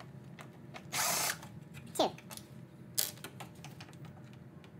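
Cordless drill/driver backing screws out of a plastic grille shroud: a short burst of the motor about a second in, then a quick falling whine near two seconds and a sharp click near three, with small ticks of the bit and screws between.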